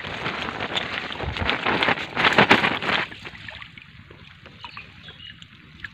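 Water splashing and sloshing as a mesh fish keepnet is handled in shallow river water, with sharp splashes through the first three seconds. After that it is quieter, with light water sounds.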